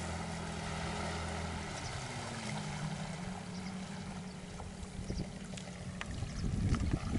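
Motorboat's outboard engine running steadily, its note shifting about two seconds in. A rough, low rushing noise builds near the end.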